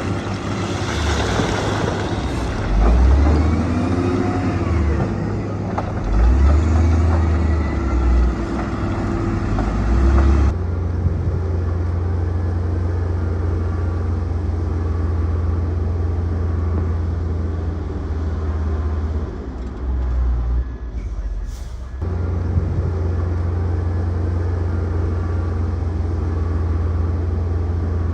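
Heavy diesel construction machinery running steadily under load, with high squeals and clanks mixed in during the first ten seconds. The sound changes abruptly about ten seconds in and again about twenty-two seconds in.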